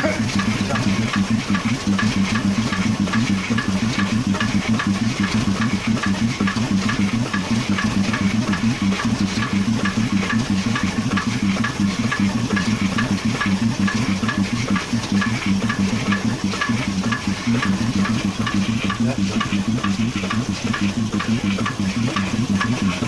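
Car engine running steadily with a rapid, even knocking clatter: the engine knock being tracked down.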